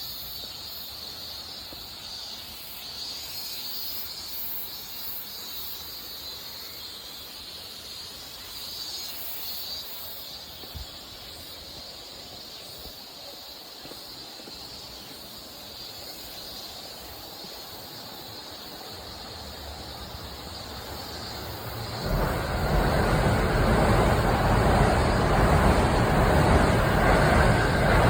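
Quiet outdoor ambience with a faint high insect hum; about 22 seconds in, a loud, steady rushing vehicle noise sets in and continues.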